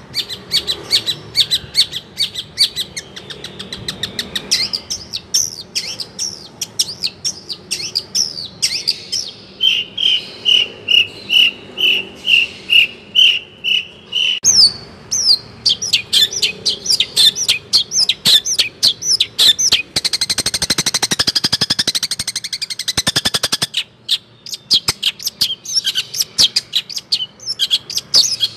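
A songbird singing a long, varied song of fast, high chirps. In the middle comes a run of evenly repeated whistled notes, and later a rapid rattling trill.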